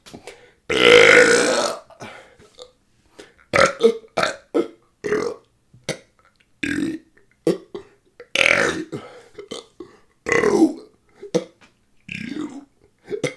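Deliberate burping in a continuous burping challenge: one long, loud belch about a second in, then more than a dozen short belches in quick succession.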